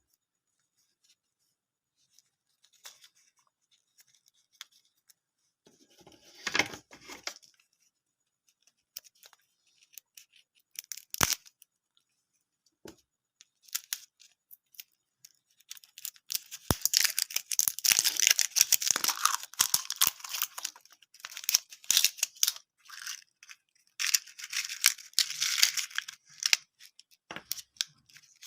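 Plastic candy packaging handled with scattered clicks and rustles, then crinkled and torn open in a long run of crackling from about halfway through.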